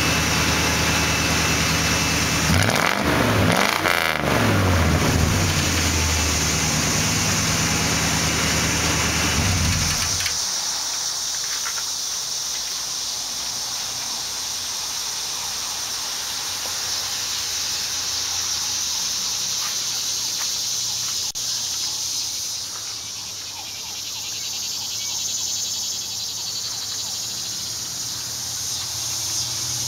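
1991 GMC Sierra K1500's small-block 350 V8 with a mild cam, running through true dual exhausts without glasspacks: idling, revved briefly a couple of times with the pitch rising and falling, then idling again. About ten seconds in the engine sound stops, leaving faint outdoor background.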